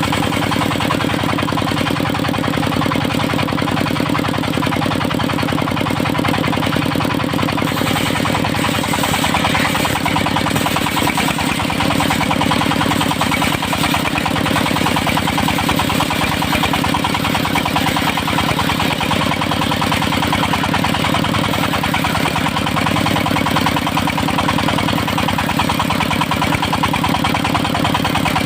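Engine of a portable circular-saw sawmill running steadily at constant speed, with a fast, even firing beat and no pauses. The sound turns a little brighter and hissier about eight seconds in.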